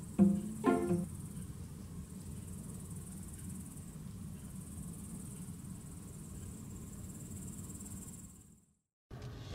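Night insects chirring steadily, an even high-pitched hiss over a low background hum; it cuts off abruptly near the end.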